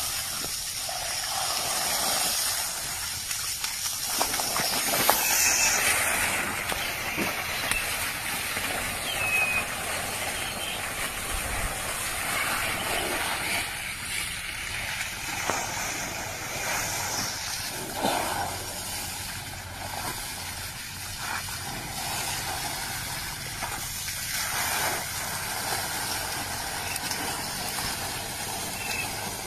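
Water jetting under pressure from a broken pipe: a steady hiss, with occasional short splashes as a baby elephant plays in the spray.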